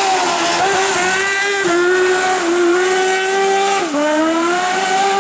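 Motorcycle-engined kart-cross racing buggy running hard at high revs. Its engine note holds high, dips and climbs once about two seconds in, then drops sharply near four seconds in and climbs again, as on an upshift.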